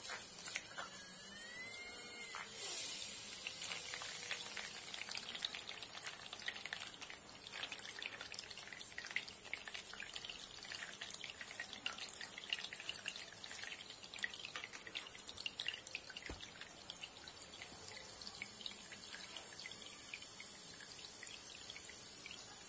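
A small battery-powered DC water pump starts up with a brief rising whine, then runs with a steady high motor whine. Water sprays from holes in a pipe and splashes and trickles into a shallow pool.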